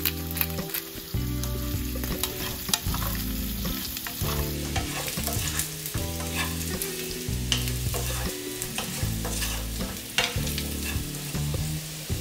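Potato chunks sizzling in hot oil in a nonstick pan while a wooden spatula scrapes and tosses them, giving scattered clicks and knocks over a steady frying hiss.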